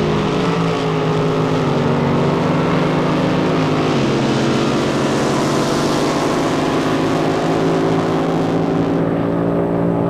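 Drag boat engine running loud and steady, its pitch stepping down about four seconds in, with a rushing hiss that swells and then fades near the end.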